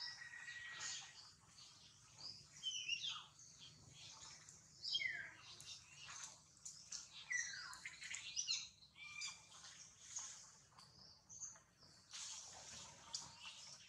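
Several birds chirping and calling in overlapping short, sweeping phrases, over a faint low background hum.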